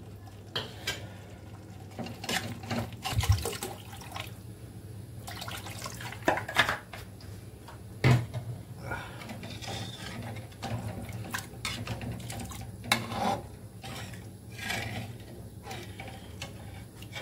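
Water poured into a steel kadai of curry masala, and a steel spatula scraping and knocking against the pan as the gravy is stirred, with several sharp metal clinks.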